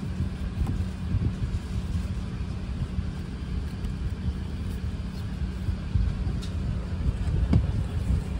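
Steady low rumble and hum of an Airbus A380 airliner cabin, with a few soft knocks near the seat.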